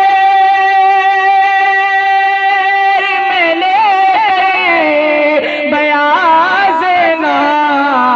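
A male voice singing an Urdu naat, holding one long note for about three seconds, then moving into wavering, ornamented runs.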